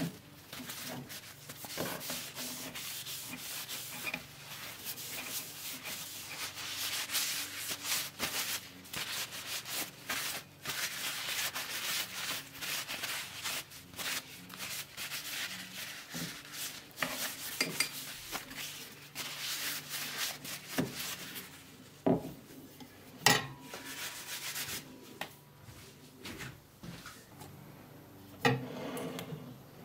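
A paper towel and cloth rubbing in quick repeated strokes over the polished wooden body and handle of an antique hand plane, buffing the finish. The rubbing thins out after about twenty seconds, and a few sharp knocks follow, one near the end.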